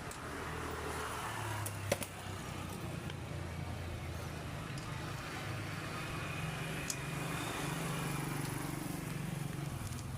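Engine idling steadily, with a single sharp click about two seconds in.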